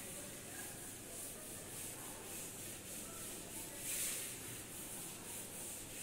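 A cloth rubbing chalk off a blackboard in repeated wiping strokes, one of them louder about four seconds in.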